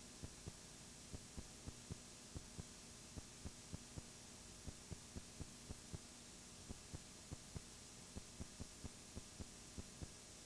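Faint steady electrical hum under a string of soft, low thumps that come unevenly, about three a second.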